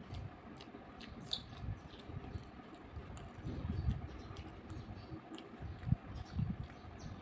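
Close-miked mouth sounds of chewing a soft mash of crumbled bajra roti, dal and rajma, in irregular soft bites. Now and then come faint squishes of fingers mixing the food in the plate.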